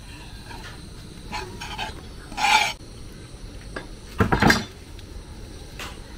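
A kitchen knife scraping across a wooden chopping board, pushing chopped okra off into a pot of soup. There are two short, loud scrapes about two seconds apart.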